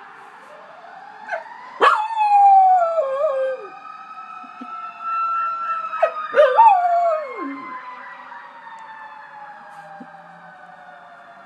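A dog howls twice along with a fire truck siren, each howl sliding down in pitch over a second or two. The siren's slow wail rises and falls beneath them, fading toward the end.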